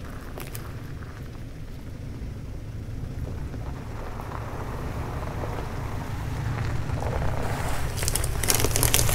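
Toyota Tacoma pickup crawling slowly over a rutted dirt trail toward a ground-level microphone: a low engine and drivetrain rumble that grows steadily louder. Near the end the tyres crunch and crackle over dirt as the truck rolls right past.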